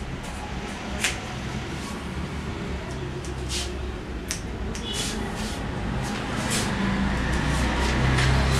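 Hairdressing scissors snipping through thick wet hair: several short, sharp snips at irregular intervals, over a steady low hum that grows louder near the end.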